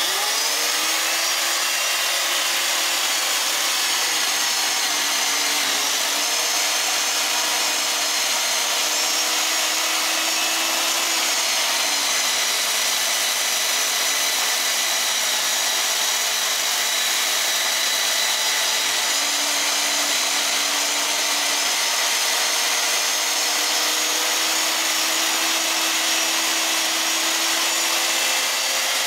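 Electric motor and saw chain of an old IE-5607 chain mortiser, switched on at once and running steadily while it cuts a slot into a pine board. Its pitch dips briefly a few times as the chain is fed into the wood.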